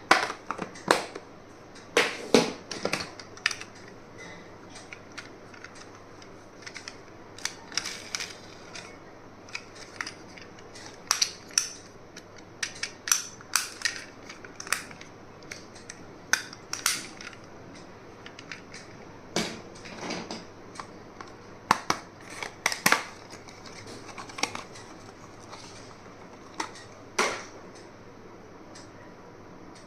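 Small stationery items and their packaging being handled: irregular sharp clicks, taps and crackles, often in quick clusters with short pauses between.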